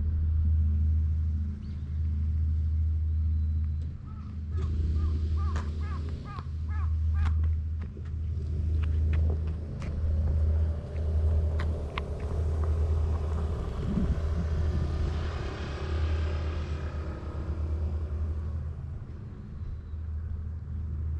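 Wind buffeting the microphone, a steady low rumble that comes and goes. About four seconds in, a quick run of about seven short, arching calls, likely from a bird, is heard over it, followed later by a few sharp ticks.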